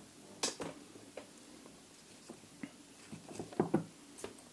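Scattered light clicks and knocks of hands working at a small bench vise as an LED board and the vise's rubber jaw pads are taken out, with a sharp knock about half a second in and a cluster of louder knocks about three and a half seconds in.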